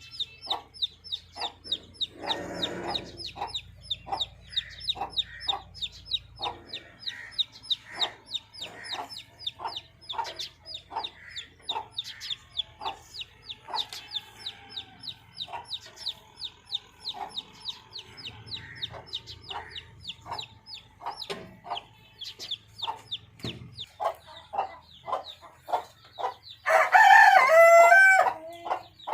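Chickens calling in a rapid, even series of short high calls, about three or four a second. Near the end a rooster crows once loudly for about two seconds.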